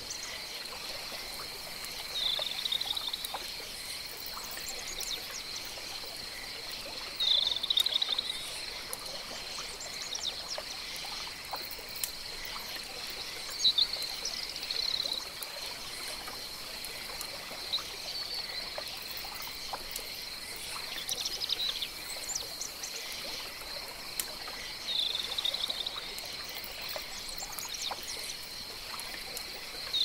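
Jungle pond ambience: a steady high-pitched insect hum, with short chirping animal calls every few seconds over faint trickling water.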